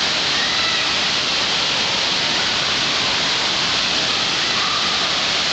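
Steady rushing hiss of water spraying and pouring onto shallow water from a water-park play structure's jets.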